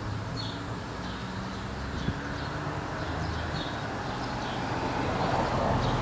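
Honey bee swarm buzzing: a low, wavering hum of many wings, with small birds chirping now and then. A rushing noise swells near the end.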